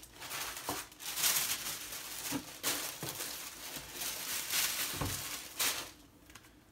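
Tissue paper rustling and crinkling in repeated surges as it is folded over the contents of a cardboard gift box, with a few soft knocks of the box. It stops about six seconds in.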